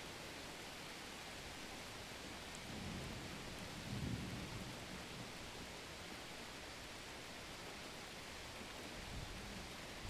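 Steady hiss of falling rain, with low rolling rumbles of thunder that swell to their loudest about four seconds in and rise again briefly near the end.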